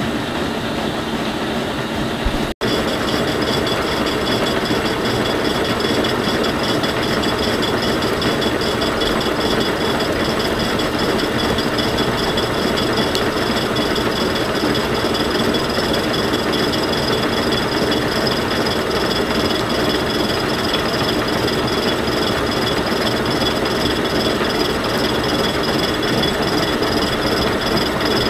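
Defiance horizontal boring mill taking a face-milling pass on a welded angle plate with a 5-inch, eight-insert carbide face mill: a steady running and cutting noise with a steady high whine. The sound drops out for an instant about two and a half seconds in, then carries on unchanged.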